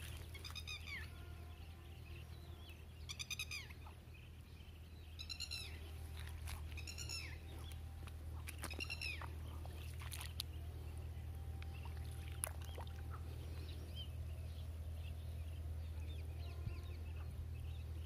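An animal calling five times, roughly every two seconds, each a short cry that rises and falls in pitch, over a steady low hum.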